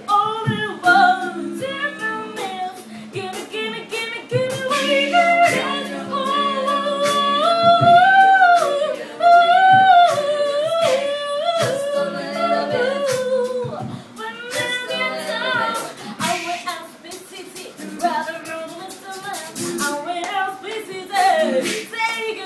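An a cappella vocal group singing: a woman's lead melody over held vocal harmonies, with sharp percussive hits recurring throughout.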